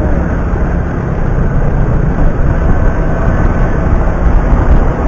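Steady engine drone and wind rush of a vehicle driving along a road, heard from on board.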